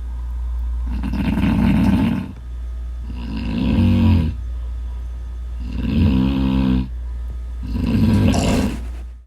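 A person snoring loudly: four rasping snores about two seconds apart, over a steady low hum.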